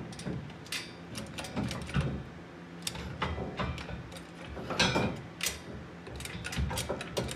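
Steel trailer hitch being wiggled into place against a pickup's frame rails: irregular metal clicks, knocks and scrapes, the loudest about five seconds in.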